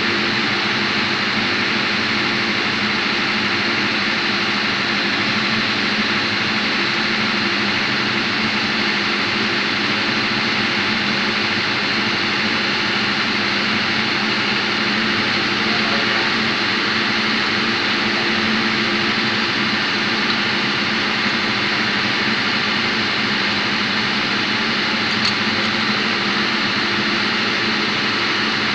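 Steady drone of diesel machinery running in a tug boat's engine room: an even hum with no change in speed.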